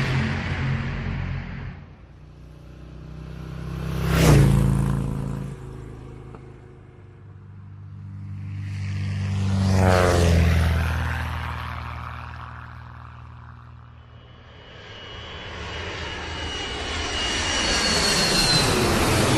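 Engine-driven vehicles passing by, three in turn, each swelling up and fading away, with the engine pitch dropping as each goes past.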